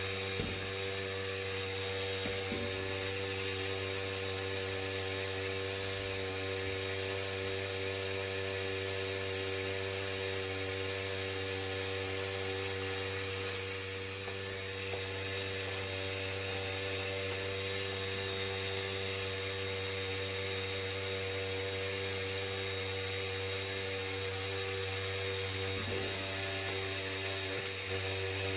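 HVAC unit running with a steady hum, a constant drone made of several fixed tones that does not change.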